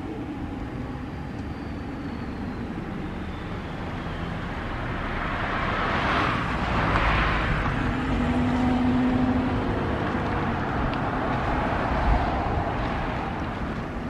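A road vehicle passing by: its tyre and engine noise swells to a peak about halfway through, then fades away.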